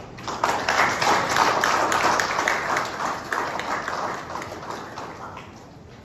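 Audience applauding: the clapping starts about half a second in, is loudest over the next couple of seconds, then dies away before the end.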